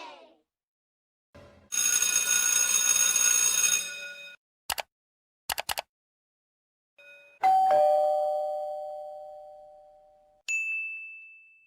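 A string of separate sound effects: first a noisy burst with ringing tones for about two and a half seconds, then a few short clicks. About two-thirds in comes the loudest, a two-note "ding-dong" doorbell chime, a higher note then a lower one fading out over about three seconds, followed by a brief high ding.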